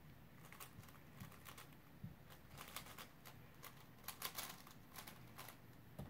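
Rubik's cube being turned quickly in a speed solve: faint, irregular plastic clicks of the layers turning, coming in quick clusters.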